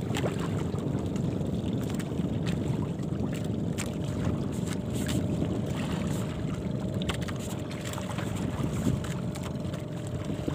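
Steady wind and sea noise aboard a small outrigger fishing boat, with wind buffeting the microphone and a few faint clicks.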